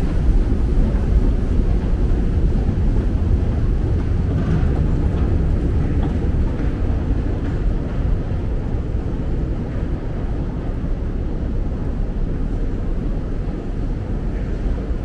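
Steady low rumble of metro station escalator machinery and station ventilation, easing off a little in the second half.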